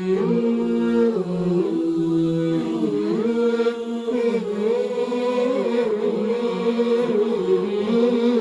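Wordless a cappella nasheed intro: male voices vocalising in harmony with no instruments, holding long notes and gliding from one to the next.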